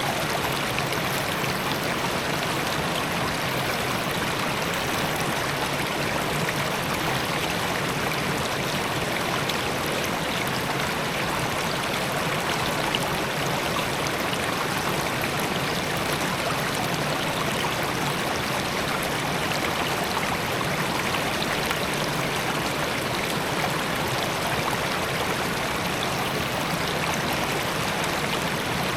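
Suwannee River water running over limestone shoals, a steady rushing of whitewater that does not change.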